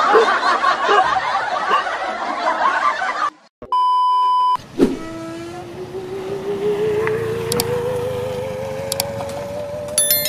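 Comedy sound-effects track: laughter runs for about three seconds and breaks off. A short steady beep follows, then a single wavering tone that slowly rises in pitch, the kind of comic tension effect laid under a prank. Near the end come a few sharp clicks and a short chime.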